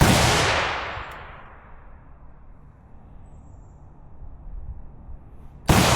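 Two single shots from an AK-pattern semi-automatic rifle, one right at the start and one near the end, about six seconds apart. Each sharp crack is followed by an echo that fades over a second or so.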